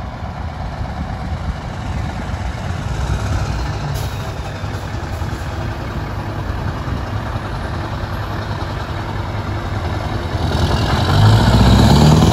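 Convoy of Scania semi-truck tractor units rolling slowly past, their diesel engines running at low speed. The lead truck grows louder as it comes close near the end.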